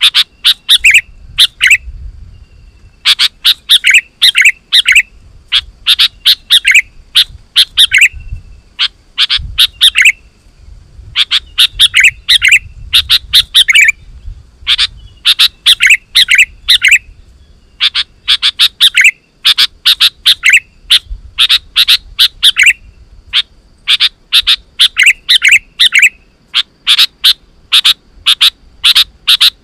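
Sooty-headed bulbul (kutilang) singing loudly and persistently: quick chattering phrases of rapid notes, each about a second long, repeated with short pauses between them.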